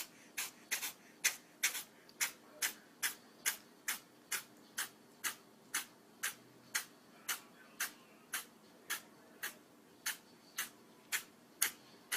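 Kitten sneezing over and over, a rapid run of short, sharp sneezes about two a second.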